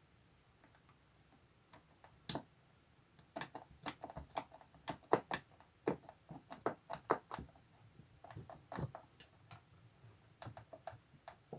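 Irregular light clicks and taps of small curtain-rod hardware being handled and fitted by hand, coming in quick clusters from about two seconds in.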